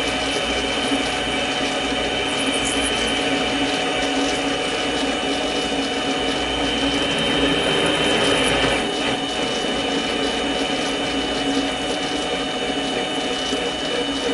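Mini lathe running under load while a spring parting tool cuts deep into the spinning workpiece: a steady motor and gear whine over the noise of the cut. The high whine falters briefly about nine seconds in.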